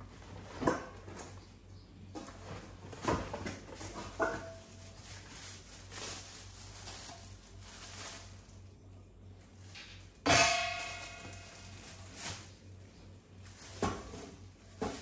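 Stainless steel cookware and a glass lid being unpacked from plastic wrapping: scattered knocks and rustles, and a loud metallic clang about ten seconds in that rings on briefly.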